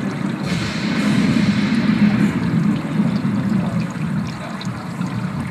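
Water from the car's artificial rain system running and trickling steadily inside the cabin, with a brighter hiss of spray for about two seconds near the start.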